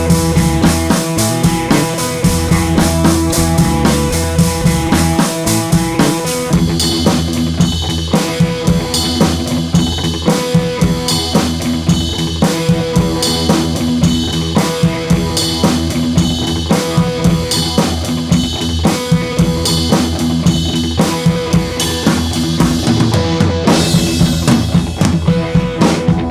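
Music with a drum kit keeping a steady beat.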